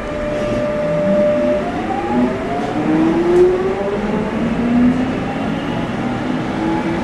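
Alstom 1996 Stock tube train accelerating, heard from inside the carriage: a steady whine from the traction equipment, then several whining tones that rise in pitch one after another, over the running rumble of the train.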